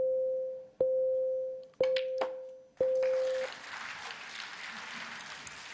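Snooker shot-clock warning beeps: four identical electronic beeps about a second apart, each just under a second long, sounding as the shot clock runs down its last seconds. They are followed by a steady hiss of crowd noise.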